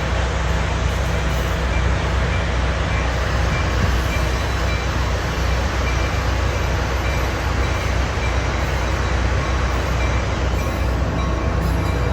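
Train standing at the platform with its equipment running: a steady, unchanging low hum over a constant rush of noise.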